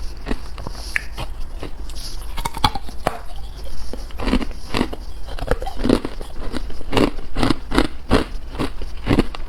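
A person biting and chewing carbonated ice, close to the microphone. It is a steady run of sharp, irregular crunches, several each second.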